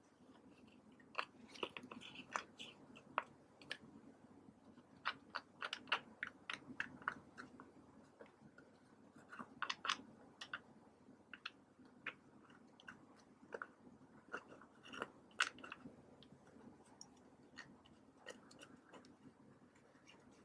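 Pressed eyeshadow being scraped and crumbled out of palette pans with a small plastic tool: irregular dry scratching and crackling clicks, bunched in short clusters.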